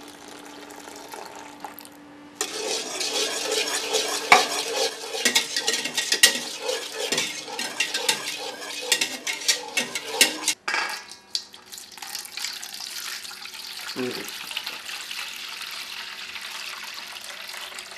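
Wire whisk stirring custard in a large aluminium stockpot: a rapid, continuous clatter and scrape of metal on metal, starting about two seconds in, as melted licorice is mixed into the warm milk-and-egg gelato base. After about ten seconds it gives way to a softer steady hiss.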